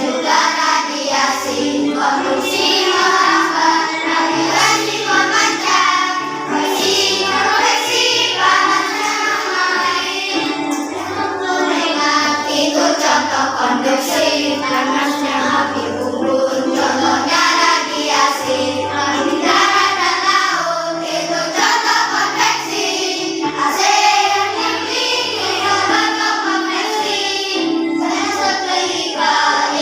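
A children's song about heat transfer, sung by a group of children's voices over an instrumental backing with a steady bass line.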